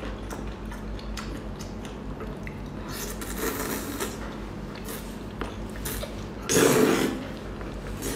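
Wet slurping, sucking and chewing as a chili-oil-soaked octopus tentacle is drawn into the mouth, with many small sticky mouth clicks. One louder slurp comes about two-thirds of the way in.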